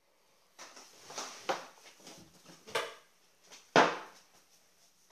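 Handling noise from a phone held in the hand: several short rubbing, scraping sounds, with a sharper, louder knock just under four seconds in.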